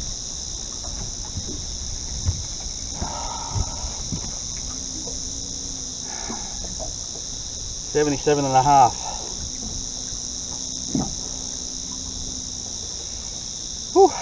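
Steady high-pitched insect chorus, with scattered light clicks and knocks. A louder brief pitched sound that wavers up and down comes about eight seconds in, and a short one just before the end.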